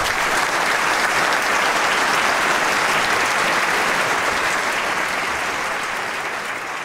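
A large audience applauding steadily, the clapping easing off near the end.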